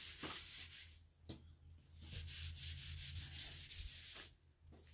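Disinfecting wipe rubbing back and forth over a chalk transfer screen, scrubbing off white chalk paste. The rubbing pauses about a second in, resumes, and stops near the end.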